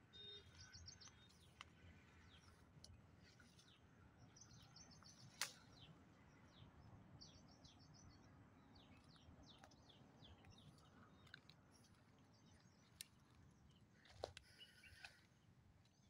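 Faint birdsong of wild birds: many short, high chirps that sweep downward, with a few quick trills, over a low rumble. A single sharp click sounds about five seconds in.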